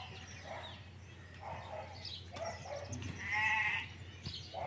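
A farm animal bleating once, about three seconds in, over faint scattered background sounds.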